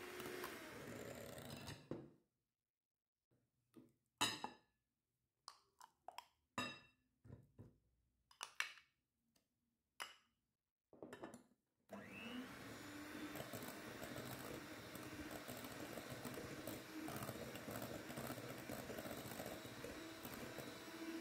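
Electric hand mixer beating a cream-cheese filling in a glass bowl. It stops after a couple of seconds, and a scatter of short spoon clinks and taps follows as mascarpone is spooned into the bowl. Just past halfway the mixer starts up again with a brief rising whine and then runs steadily.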